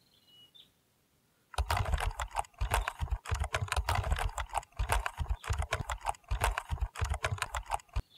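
Palm sap boiling hard in a large wok over a wood-fired clay stove, with dense, irregular crackling and popping over low thumps. It starts suddenly about a second and a half in and stops just before the end.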